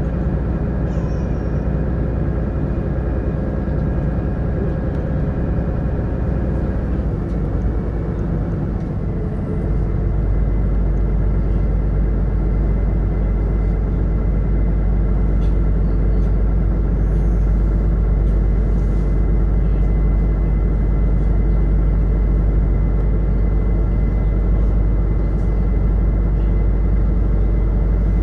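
A sightseeing boat's engine running with a steady hum, heard on board. About seven seconds in its pitch shifts, and from about ten seconds in it runs a little louder.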